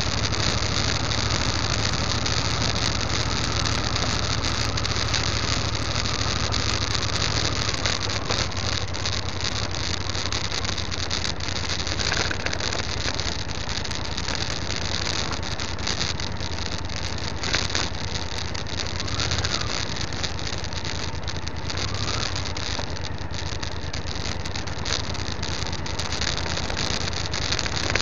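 Motorcycle engine running at a steady cruise on a gravel track, under a steady rushing noise with many small scattered ticks from the tyres on loose stones.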